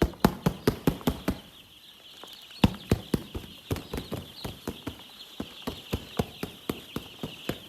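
Quick, evenly spaced footsteps, about three a second after a brief pause, over a steady high chorus of poultry chicks peeping.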